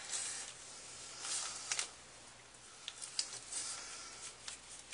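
Paintbrush bristles swishing and scratching softly across paper in a few short strokes.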